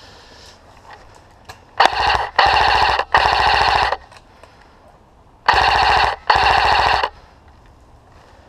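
Airsoft automatic rifle firing loud rapid full-auto bursts: three bursts back to back, then after a short pause two more.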